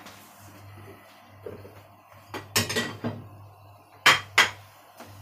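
Kitchen utensils clattering against a plate and dishes: a short burst of knocks and scrapes about halfway through, then two sharp clinks near the end.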